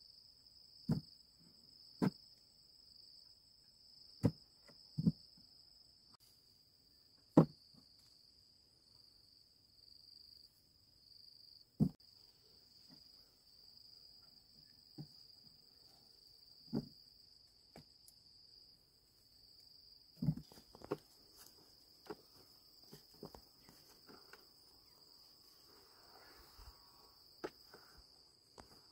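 Steady high-pitched insect drone, with a dozen or so irregular knocks and thuds as cassava roots are dropped into a plastic bucket and onto a pile.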